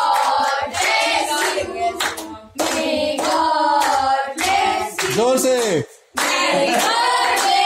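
A group of children and adults clapping in time and singing a birthday song together, with two short breaks in the singing.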